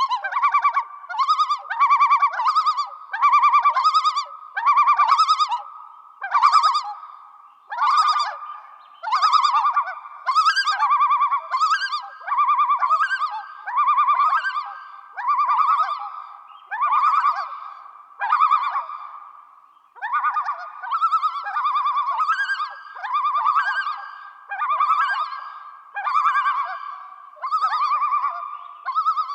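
A loon calling in a long run of repeated wavering phrases, about one a second, with a brief pause about two-thirds of the way through.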